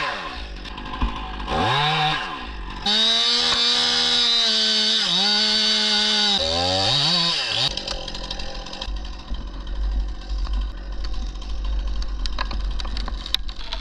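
Two-stroke Stihl top-handle chainsaw revving, then held at full throttle for about three seconds while cutting through a tree trunk, with a few quick throttle blips after. About halfway through the engine drops away to a faint idle under a low rumble and scattered clicks.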